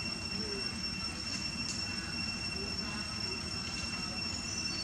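Steady outdoor ambience: a continuous high-pitched whine over a low rumble, with no distinct event standing out.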